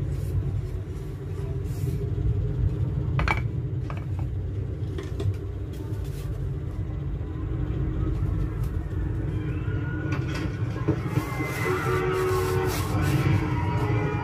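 A film's soundtrack playing in the room: a steady deep rumble of engine-like sound effects. Wavering higher tones come in near the end, and there are a few light knocks.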